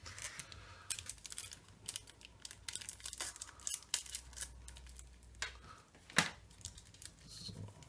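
Foil trading-card booster pack being torn open and its wrapper crinkled in the hands: irregular crackling and tearing, with one sharper crackle about six seconds in.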